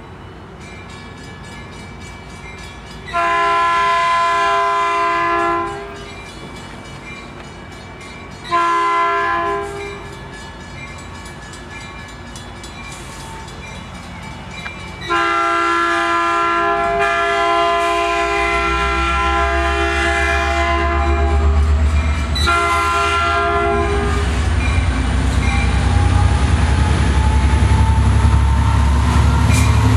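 Diesel locomotive air horn, an EMD F59PH's, sounding four blasts: a long one, a short one, a much longer one, then a short one. After that the locomotive's diesel engine rumbles louder and louder as it approaches, with a whine rising in pitch as the train picks up speed.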